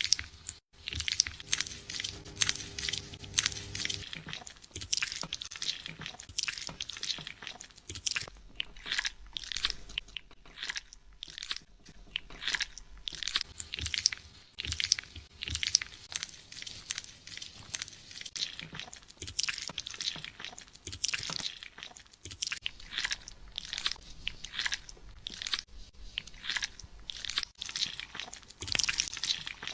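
Fingers scratching and rubbing a person's scalp and hair close to the microphone, in short scratchy strokes, one or two a second.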